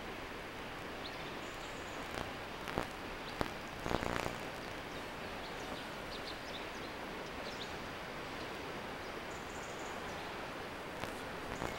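Open-air ambience: a steady background noise with scattered faint, short high chirps, broken by a few short knocks and a brief rustle between about two and four seconds in.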